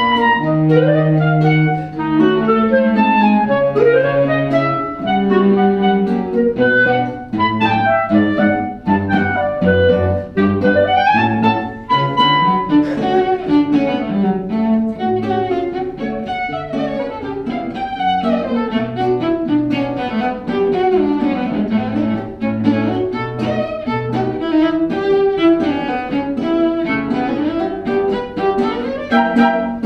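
Small live chamber ensemble playing, led by bowed strings: a low cello line of held notes under higher violin parts, with several notes sliding upward in pitch.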